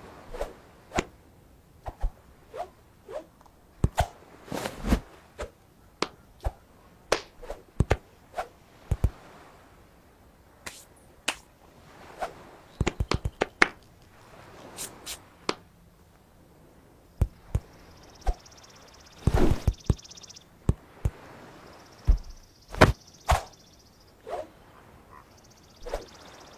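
Cartoon sound effects for animated stick figures: an irregular string of short taps, thuds and whacks throughout, with a few brief hissing whooshes in the second half.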